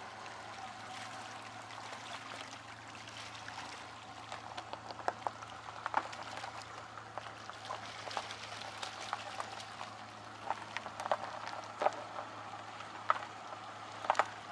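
Footsteps crunching on gravel: irregular sharp crunches that begin a few seconds in, over a steady low hum.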